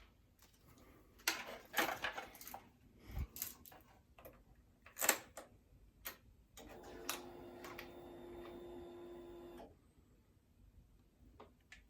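Several clicks and handling knocks, then a small electric motor hums steadily for about three seconds and cuts off suddenly.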